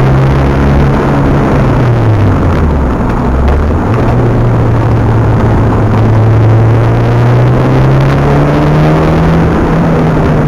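Mitsubishi Galant VR-4 engine heard from inside the cabin under hard track driving. Its note falls for about two seconds, then jumps back up and climbs steadily as the car accelerates, easing off again near the end.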